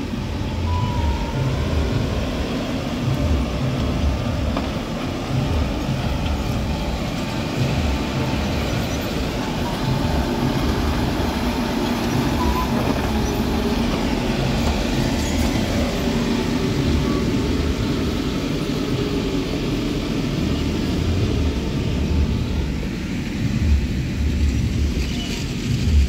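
Diesel engine of a Mahindra G75 motor grader running steadily under work, a loud low rumble.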